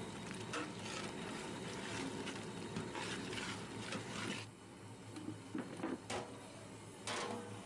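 A long flat metal spatula scraping and stirring mutton curry as it fries in a large aluminium pot, for about four seconds. Then a few sharp metallic clanks as the aluminium lid is handled to cover the pot.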